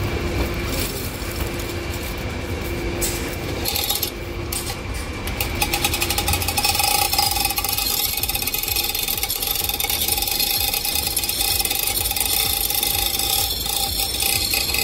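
Machinery rattling on an industrial work site: a low hum with a few knocks, then from about five seconds in a fast, steady mechanical rattle with a constant whine over it.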